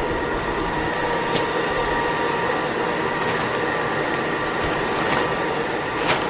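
Home-built aluminium-melting furnace firing at about 700 °C: a steady rushing noise with a thin constant whine, broken by a couple of light clinks, the sharpest near the end.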